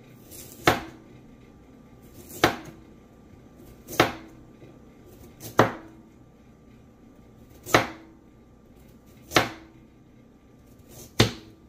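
Kitchen knife slicing through a raw carrot and knocking on the cutting board: seven single, unhurried cuts, one about every one and a half to two seconds.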